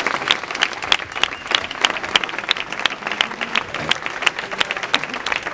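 Crowd applauding, many hands clapping steadily and unevenly.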